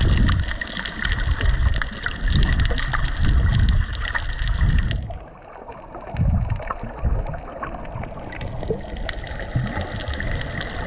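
Muffled underwater sound heard through a GoPro's housing just below the surface: water surging and sloshing around the camera in irregular low pulses, with scattered clicks and crackles. About five seconds in the higher hiss drops away and the sound goes duller.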